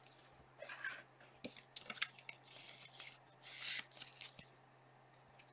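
Trading cards and foil pack wrapper rustling and sliding against each other as they are handled, in several short, soft scrapes.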